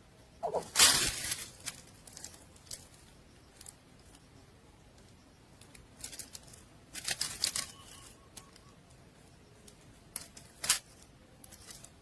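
Nestlings stirring in their nest: several short bursts of rustling and scraping against the nest material, the loudest about a second in and another around seven seconds, with a brief squeak just before the first burst and a sharp click near the end.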